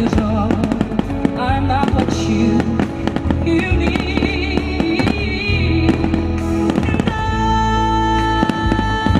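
Fireworks show music playing loud, with a rapid, irregular run of bangs and crackle from fireworks shells bursting over it. The music settles into a long held chord about two-thirds of the way through.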